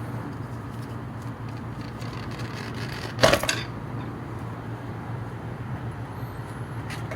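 A single sharp metallic clank about three seconds in, as steel strut parts and the compressed coil spring are handled, over a steady low hum.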